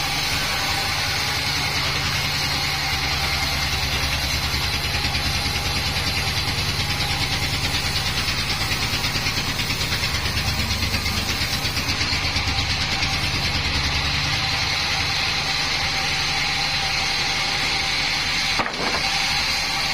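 Band sawmill machinery running steadily: a low, throbbing engine-like drone under a steady high whine, with one sharp knock near the end.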